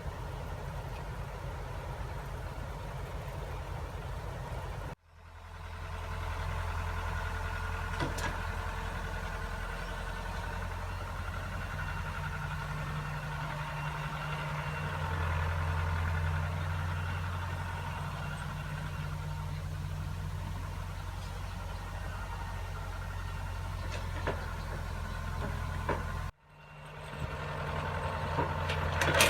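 Heavy diesel engine of a farm machine running steadily. It cuts out abruptly twice and comes back at a slightly different pitch.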